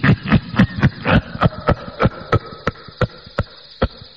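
A man's strange, eerie laugh: a run of short laughing bursts, quick and full at first, then slowing and spacing out, about fourteen in all.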